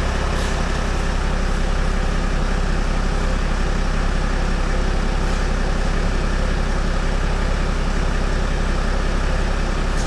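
2017 Land Rover Discovery's 3.0 turbo engine idling steadily while the air suspension raises the body to maximum height in jacking mode.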